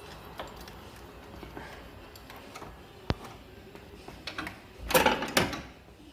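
Hand tools and metal parts being handled: light ticks, one sharp click about three seconds in, then a short, louder metallic clatter near the end.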